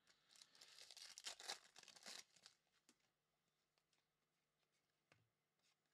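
Foil wrapper of a trading-card pack being torn open and crinkled for about two and a half seconds, then only a few faint clicks.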